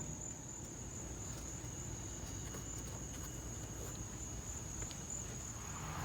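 Crickets trilling: one steady high-pitched note over a low background rumble, with a few faint clicks.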